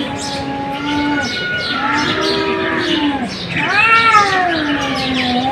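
A cat yowling in long, low, drawn-out calls, three in a row: the first held steady, the second rising and falling, the last sliding down in pitch.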